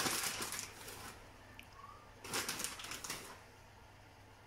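Plastic bag of grated mozzarella crinkling and rustling as cheese is shaken and sprinkled onto a pizza base, in two bursts: one at the start and one about two and a half seconds in.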